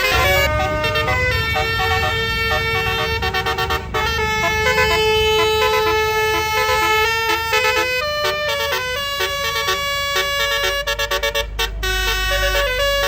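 Bus 'telolet basuri' multi-tone air horn playing a tune in stepped notes over the deep rumble of the bus engine, with a run of quick choppy notes near the end.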